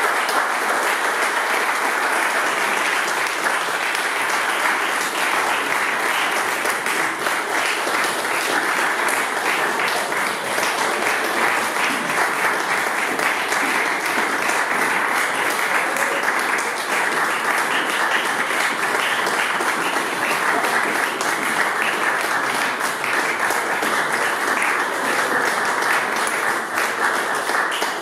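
Small audience clapping steadily, applause welcoming performers as they walk on.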